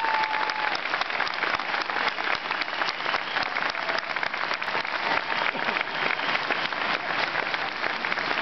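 Crowd applauding, many hands clapping steadily throughout.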